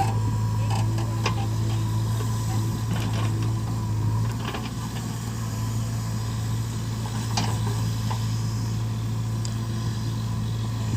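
Diesel engine of earth-moving machinery running steadily, with several scattered metallic knocks and clanks from the working machine.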